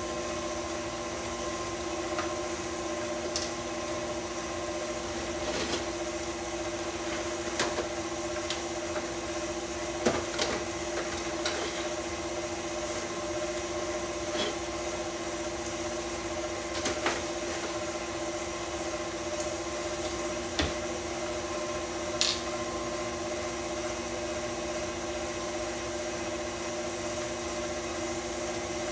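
Electric stand mixer running steadily at a set speed, beating pound-cake batter of creamed butter, sugar and eggs: an even motor hum. A few short, light clicks and knocks from utensils on the counter sound over it.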